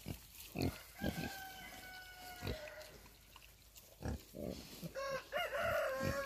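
A rooster crowing twice, two long calls starting about a second in and again near the end, over short low grunts from pigs rooting in the pen.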